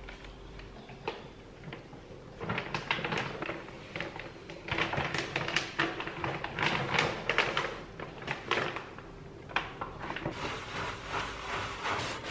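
Plastic Oven Pride cleaning bag crinkling and crackling, starting about two seconds in, as it is handled and tilted around wire oven racks soaked in cleaning solution. Near the end it gives way to a softer rubbing of a sponge inside the oven.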